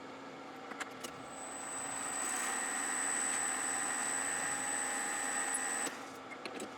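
Small metal lathe running while cutting brass stock: a steady hum, with a high whine and cutting hiss that build about a second in and stop suddenly near the end.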